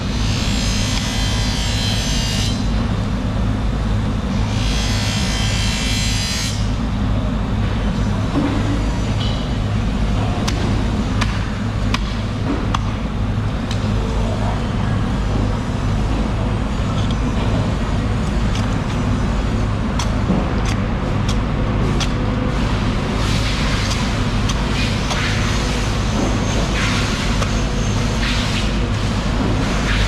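Steady low drone of an engine running nearby. Over it come two spells of hiss in the first seven seconds and scattered knocks and clicks of a heavy knife chopping through a marlin's head.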